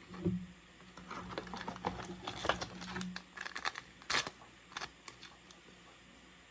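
Trading cards and a foil booster-pack wrapper being handled: soft crinkling with scattered light clicks and taps, mostly in the first five seconds and sharpest about four seconds in.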